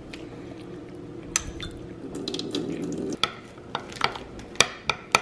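Metal spoon stirring melted chocolate in a glass Pyrex measuring cup, with sharp clinks of the spoon against the glass, more frequent in the second half. A steady low hum underneath stops about three seconds in.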